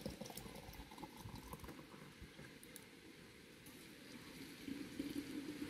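A thin stream of water poured from a pot into large glass jars of blackberries and sugar, splashing as the jars fill. The pour moves from one jar to the next partway through.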